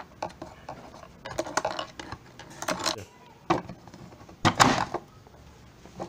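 Plastic and metal clicks, scrapes and knocks as a screwdriver works in a washing-machine pulsator's hub and the plastic centre cap is fitted back on, with the loudest clatter about three-quarters of the way through.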